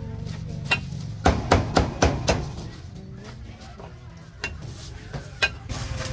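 Heavy cleaver chopping roasted meat on a thick round wooden chopping block. Sharp chops come in a quick run of about five a second or so in, then a few single strikes near the end.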